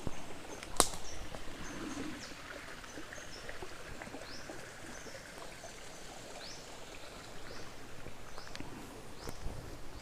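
Water in a canal flowing steadily, with short high bird chirps repeating throughout. There is a single sharp click about a second in.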